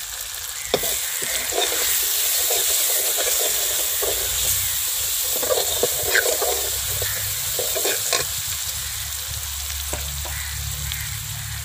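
Onion-tomato masala with ground spices sizzling in ghee in a metal kadhai as a metal ladle stirs it, with scattered clinks and scrapes of the ladle against the pan.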